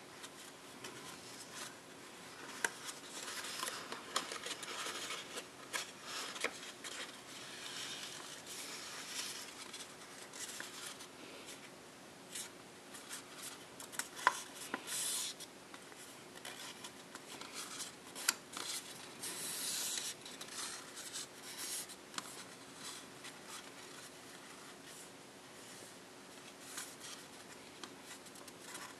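A sheet of printed copy paper being folded by hand, rustling and creasing, with fingers rubbing the folds flat and small crisp clicks. The paper sounds come and go in several short spells.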